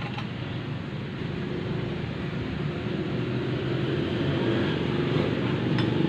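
A steady low motor rumble that grows somewhat louder in the second half, with a couple of faint light clicks near the start and the end.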